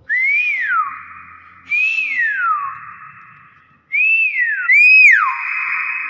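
Hill myna giving four loud whistles, each rising briefly and then sliding down in pitch, the last two close together near the end.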